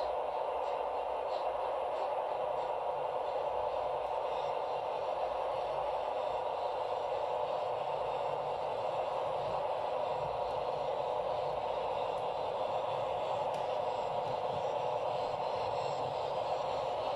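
O-gauge model train running on the layout, a steady even whirr of its motor, gears and wheels on the rails, with no rhythm and no change in level.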